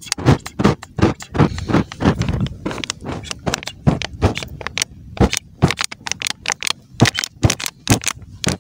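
Molten plastic dripping in flames from a burning plastic water bottle onto sand: a rapid, irregular run of short, sharp crackles, several a second.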